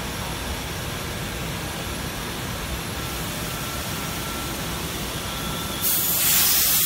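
Steady hum and rush of woodworking machinery running in a factory hall. Near the end a much louder, high-pitched hiss suddenly cuts in.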